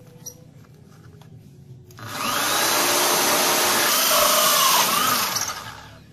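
Electric drill driving a hole saw through 6 mm MDF board. The drill starts about two seconds in, runs for about three seconds with its pitch wavering as the saw bites, and winds down near the end as the cut goes through.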